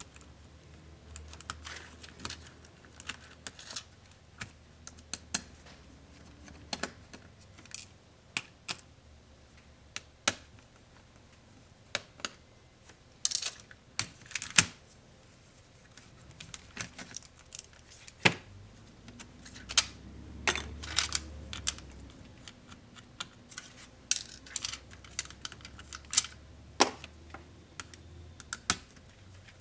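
Small plastic and metal parts of a Lenovo ThinkPad Yoga 260 laptop being worked by hand and with tools, giving irregular sharp clicks and taps with a few louder knocks.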